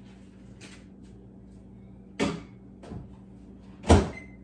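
Microwave oven door handled: a sharp knock, a lighter one, then a loud slam of the door shut, followed at once by a short electronic keypad beep.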